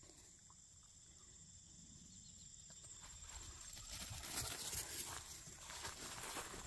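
Near silence at first, then from about three seconds in soft, irregular rustling of footsteps through grass, growing a little louder.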